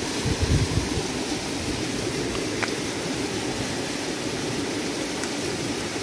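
Steady rushing of flowing water, with a few low thumps about half a second in.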